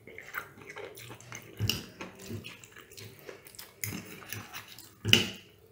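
Close-up eating sounds: spaghetti in tomato sauce being slurped and chewed, with a fork and spoon clinking against the bowl. These come as irregular wet smacks and clicks, the loudest just after five seconds in.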